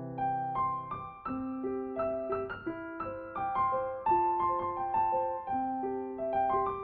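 Gentle piano music: a melody of single struck notes, a few a second, over longer held lower notes.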